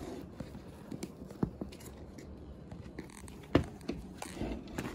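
Glue slime being stirred and lifted with a plastic spoon in a bowl: faint sticky scraping, with a few light clicks of the spoon against the bowl, the loudest a little past halfway.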